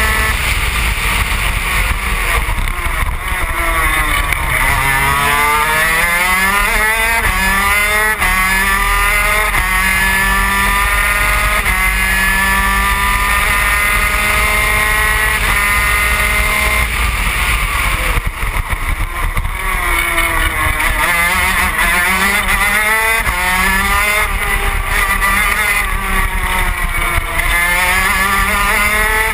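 Yamaha TZ250 twin-cylinder two-stroke engine of a 250 gearbox superkart, heard on board at racing speed. It starts high and steady, then its revs drop through downshifts for a corner. After that it climbs in a run of rising sweeps, each cut short by an upshift. This happens twice.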